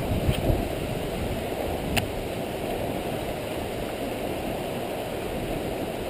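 Steady rush of wind and lapping water around a small fishing boat. There are two low thumps just after the start and a single sharp click about two seconds in.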